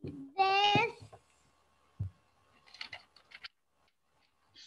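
A child's short drawn-out vocal sound, then a low thump and scattered clicks and rustles, heard through a video-call microphone.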